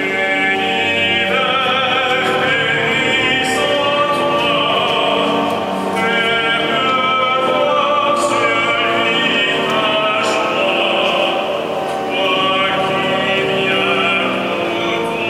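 Choir singing sacred music in a large cathedral, with long held notes.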